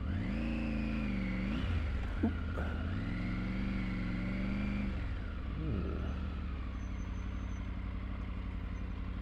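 Triumph Tiger 900 Rally Pro's three-cylinder engine under way on a gravel road. It revs up at the start, dips for a moment, revs up again and holds, then eases off about five seconds in, over steady road and wind noise.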